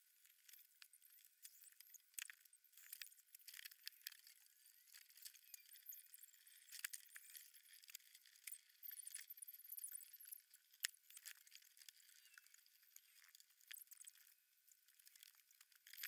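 Faint, irregular clinking and light clicking of metal hardware and tools against a wooden crib frame as it is put together by hand, with many small taps and rattles.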